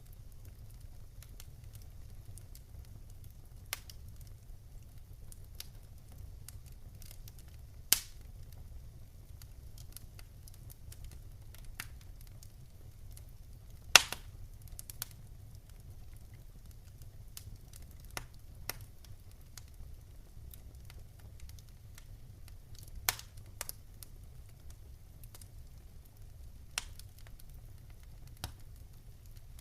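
Wood campfire crackling: scattered sharp pops and snaps over a low, steady rumble, with the loudest pops about eight and fourteen seconds in.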